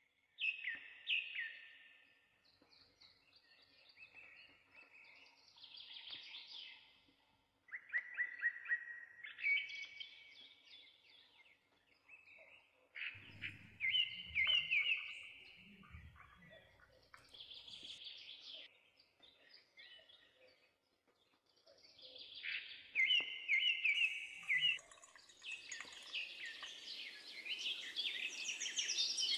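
Small birds chirping and singing in repeated short, high phrases. Near the end a steady splashing hiss builds as water is poured from a small steel kettle into a little metal pot.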